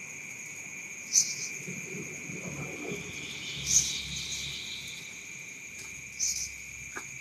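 Night insects chirring: a steady high-pitched cricket drone, with a louder high chirp repeating about every two and a half seconds.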